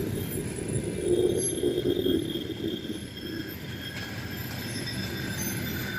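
Passenger train cars rolling slowly past along the platform as the train pulls in and slows to a stop, a steady low rumble of wheels on rails, a little louder about a second in.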